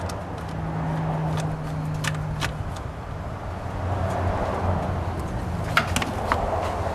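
A handful of short, sharp plastic clicks as the engine covers and their clips are pried off, over a steady low hum.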